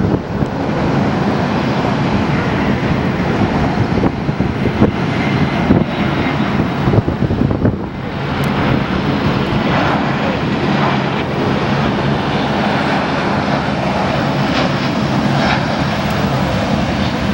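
Jet engines of an Airbus A320-family airliner on final approach, a steady rushing noise with a low hum under it.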